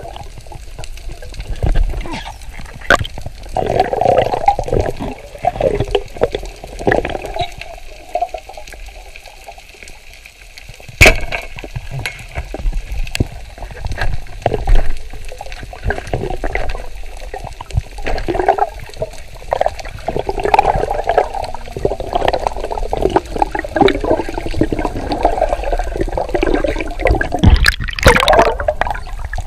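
Underwater sound picked up by a submerged camera: a shifting wash of moving water with scattered clicks and knocks. A sharp knock comes about a third of the way in. Near the end, a burst of splashing and sloshing as the camera breaks the surface.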